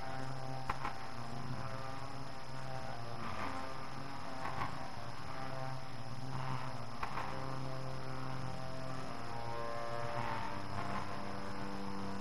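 Slow ambient music played from a cassette tape: held chords that shift every few seconds, with a few soft strokes, over steady tape hiss. The tape runs slightly fast.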